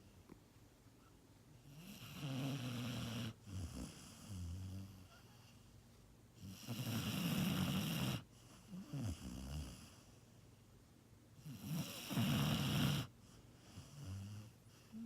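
Sleeping dog snoring: three loud snores about five seconds apart, with softer breaths between them.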